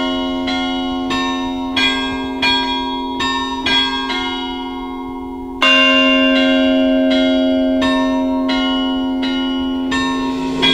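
Church bells pealing, with strikes about twice a second over a long ringing hum. The peal cuts to a louder stretch about halfway through.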